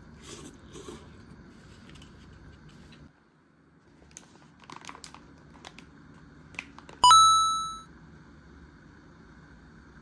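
A few soft rustles and crinkles in the first second, scattered light clicks, then a single bright chime about seven seconds in that rings out and fades within a second.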